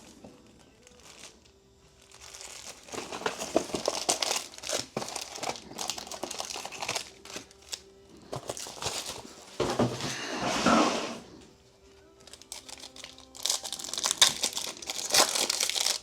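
Trading-card pack wrappers being torn open and crinkled in the hands, in irregular crackly stretches, with a longer, louder stretch about ten seconds in.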